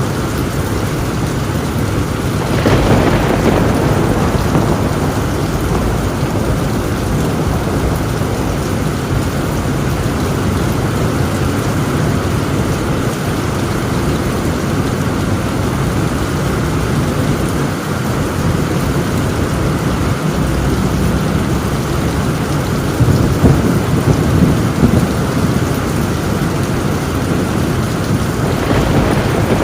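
Torrential rain drumming steadily on a tin roof, with thunder: a loud clap about two and a half seconds in, and more thunder rumbling in the last several seconds.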